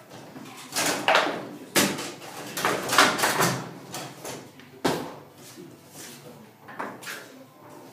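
Table-football game in play: a series of irregular sharp knocks and clatters from the ball being struck and the rods banging, the loudest cluster a few seconds in.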